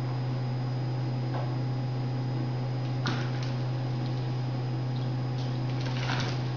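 A steady low electrical hum, with a faint click about three seconds in.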